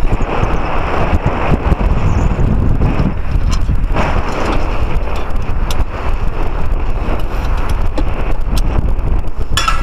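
Wind buffeting the microphone high up on a chimney, a loud, steady low rush, with a few faint clicks now and then.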